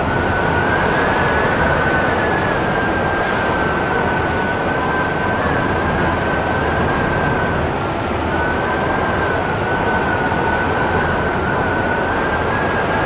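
Strong wind blowing hard against the microphone as a dense rushing noise, with a thin high whistle held throughout that wavers slightly in pitch.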